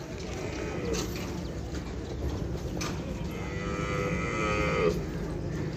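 Buffalo mooing: one long call about halfway through.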